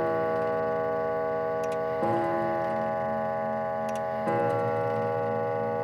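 Antique German bracket clock striking: slow, evenly spaced blows about two and a quarter seconds apart, each the same rich note that rings on long under the next. A faint click comes just before each blow.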